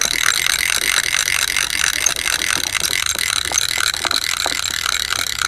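Fishing reel clicking steadily as the line is wound in on a hooked fish.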